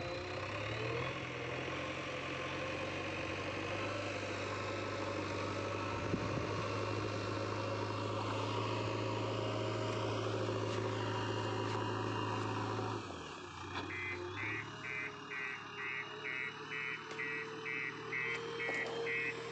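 JCB backhoe loader's diesel engine running steadily. About two-thirds of the way in its note drops and the reversing alarm starts beeping, about three short beeps a second, as the machine backs up.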